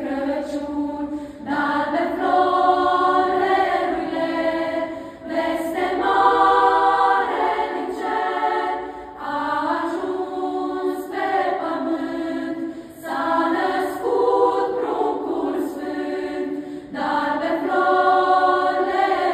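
Children's and women's choir singing a Romanian Christmas carol (colind), in sung phrases of about four seconds each with short breath breaks between them.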